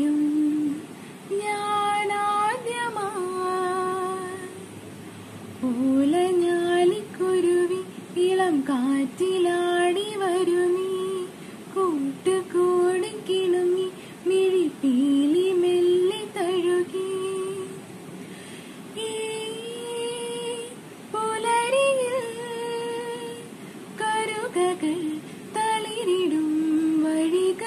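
A young woman singing a song solo, unaccompanied, in long held notes that slide between pitches, with short pauses for breath.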